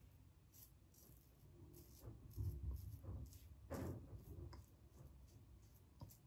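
TGS Valynor safety razor with a KAI blade scraping through lathered stubble on the first, with-the-grain pass: a faint series of short strokes, two or three a second, one slightly louder stroke just before the middle.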